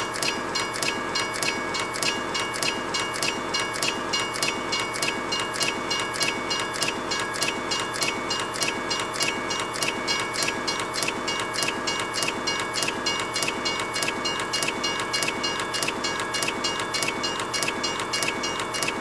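Approaching train, dubbed in as a sound effect: a steady rhythmic clatter at about three beats a second, with a steady high whine over it.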